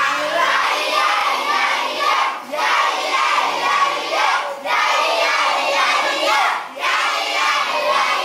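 A large group of children singing or chanting together in unison, in repeated phrases of about two seconds with a short break after each.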